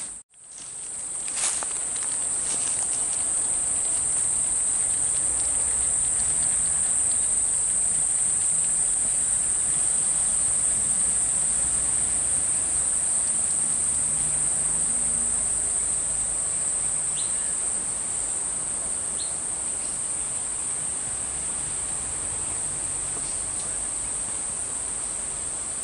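Steady, high-pitched insect chorus. It fades back in over the first couple of seconds after a brief drop-out.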